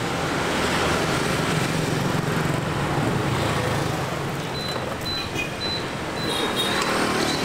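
Street traffic, mostly motor scooters and motorbikes, running past in a steady hum. From about four and a half seconds in, a short high chirp repeats roughly every half second.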